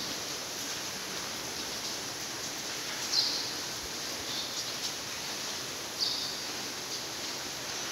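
Heavy rain falling steadily, an even hiss, with two short high chirps standing out above it, about three seconds apart.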